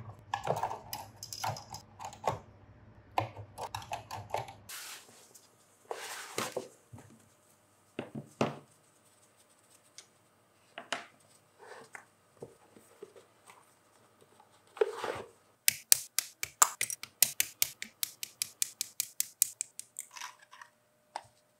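Plastic model-kit sprues clattering against each other and a plastic sprue rack as they are slotted in. Then scattered taps and rustles as tools are handled in their box. Near the end comes a quick run of sharp clicks, about four or five a second, from hobby side cutters snapping open and shut.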